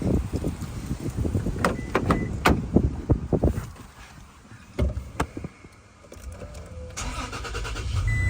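Knocks and thumps of someone climbing into a Toyota Tacoma pickup, with a door shutting heavily about five seconds in. Near the end the engine cranks, starts and settles into a steady low idle, with a short chime beep.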